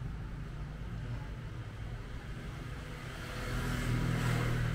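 Road traffic: a steady low engine hum, with a vehicle getting louder as it passes near the end.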